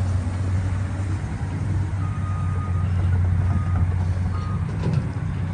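An engine running steadily, heard as a low hum, with a faint high-pitched beep that comes and goes a few times from about two seconds in.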